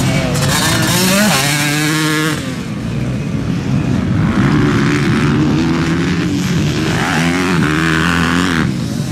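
Motor vehicle engines running, their pitch rising and falling several times as they rev.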